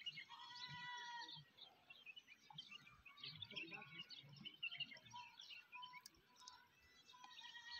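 Small birds chirping faintly, with many short overlapping calls and a few brief held whistles.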